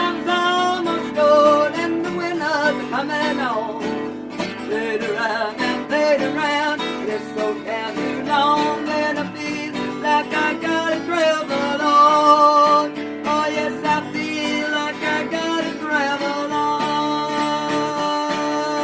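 Acoustic guitar strummed in a country rhythm under a singing voice that holds long, wavering notes. No clear words come through.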